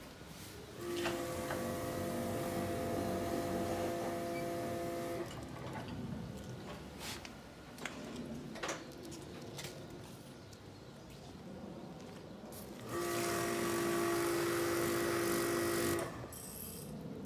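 Compressed-air blow gun blowing out a truck's engine bay in two blasts, one of about four seconds and a later one of about three, each a loud hiss with a steady whistle. A few sharp knocks fall between the blasts.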